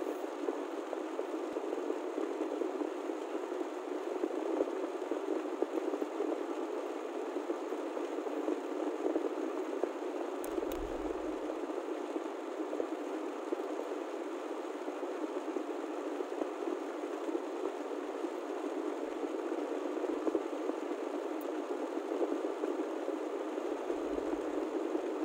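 Steady road and cabin noise inside a moving car, with a brief low bump about ten seconds in and some low rumble near the end.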